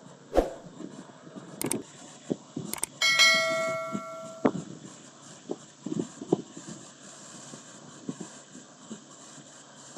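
A few sharp metallic knocks and clanks, then about three seconds in a piece of metal is struck and rings like a bell. The ring fades over about a second and a half before another knock stops it.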